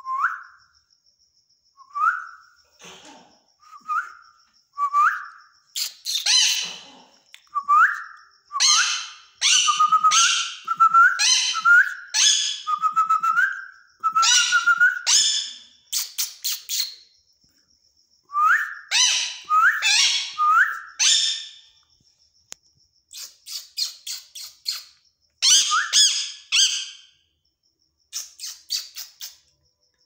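Male Indian ringneck parakeet calling: short rising whistles repeated about once a second, mixed with runs of harsh, screechy squawks. The calls come in bursts with a couple of short pauses.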